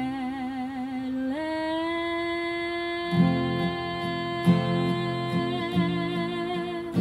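A young woman singing solo with acoustic guitar accompaniment. She sings a wavering note, steps up about a second in to a higher note, and holds it for several seconds. Strummed guitar chords come in under it about three seconds in.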